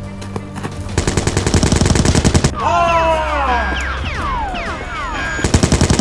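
Dubbed automatic-gunfire sound effect: a rapid burst of shots lasting about a second and a half, several overlapping falling whines, then another short rapid burst near the end, over background music.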